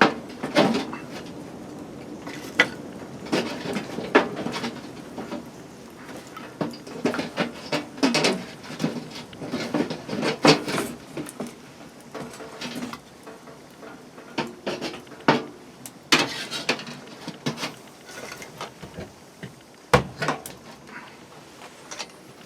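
Irregular clatter and knocks of hard objects being handled and set down, with a sharp knock about twenty seconds in.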